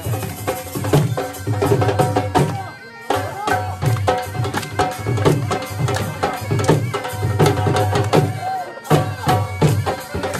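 Dhol drum and been reed pipe playing Saraiki jhumar music, the drum beating a steady, regular rhythm under the pipe's held melody. The music drops out for an instant twice, about three seconds in and near the end.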